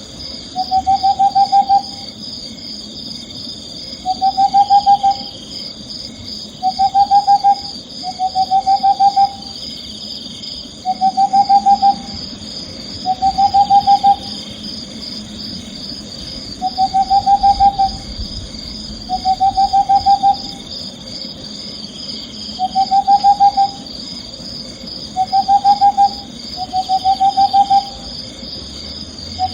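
Owl calling again and again, each call a short trilled hoot about a second long, repeated every two to three seconds over a steady high-pitched chirring.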